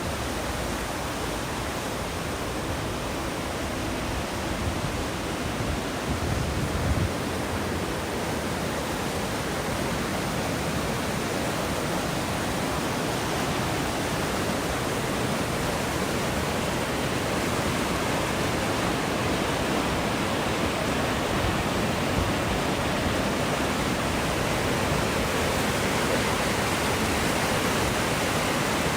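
Rushing water of a river cascade, a steady even rush that slowly grows louder, with a few low knocks about six seconds in.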